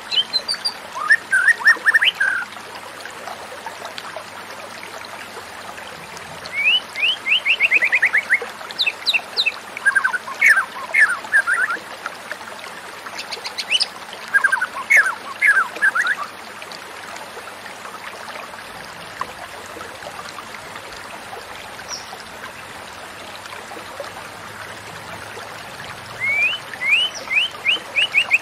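White-rumped shama singing in bursts of quick, sharp whistled notes, several phrases with a pause of about ten seconds between the middle ones and the last, over a steady background hiss.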